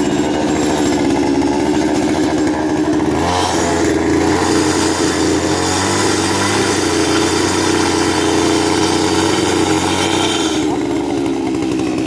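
Two-stroke petrol earth-auger engine, converted to drive a core-cutting bit, running steadily while the bit sits in a stone block. About three seconds in it speeds up with a higher, brighter whine and holds there, then drops back shortly before the end.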